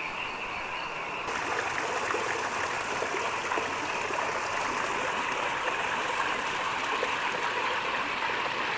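Running water splashing steadily, growing fuller and a little louder just over a second in.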